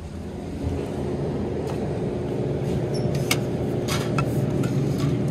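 Steady low hum of a convenience store's refrigerated drink cooler, its compressor and fans running, with a few light clicks of bottles being handled from about three seconds in.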